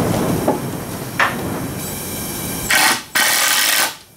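Handheld power drill driving a screw into a 2x4 beam: two bursts of running about three seconds in, a short one and then a longer one. A couple of light knocks from the wood being handled come before it.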